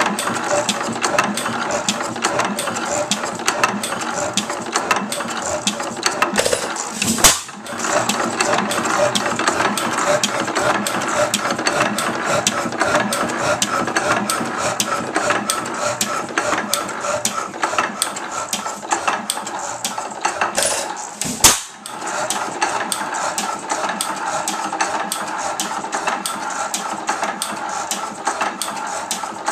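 1903 Fairbanks Morse Type N 5 hp hit-and-miss gasoline engine running on its first run after a complete teardown, its valve gear and igniter linkage clattering in a quick steady rhythm while the flywheels carry it. It fires with a sharp bang twice, about fourteen seconds apart.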